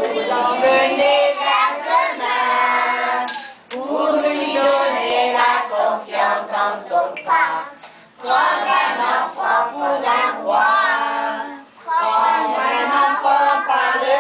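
A group of young children singing a song together, in phrases broken by short pauses for breath.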